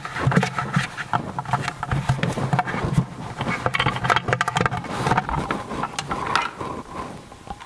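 Plastic-on-plastic handling noise: irregular small clicks, knocks and scrapes as a plastic spigot and its nut are unscrewed and taken off a 5-gallon plastic bucket.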